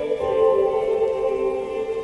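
Background music with slow, sustained layered chords, ambient in character.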